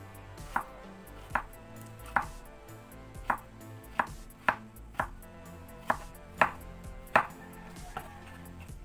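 Kitchen knife slicing peeled ribbed loofah (patola) into rounds on a wooden cutting board: about eleven sharp knocks of the blade against the board, irregularly spaced, roughly one a second.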